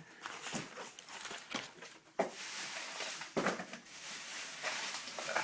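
Objects being handled: a few sharp knocks, then steady rustling from about two seconds in.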